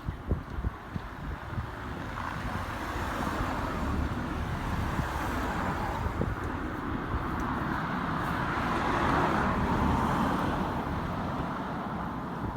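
A vehicle passing close by: a steady running noise grows louder to a peak about nine seconds in, then eases off. A few sharp knocks sound in the first second.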